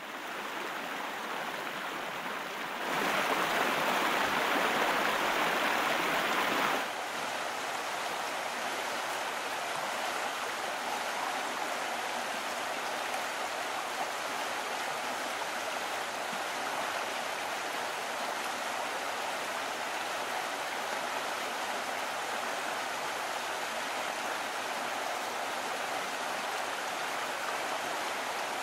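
Shallow rocky stream running over stones, a steady rush of water. It is louder for about four seconds near the start, then settles to a softer, even flow.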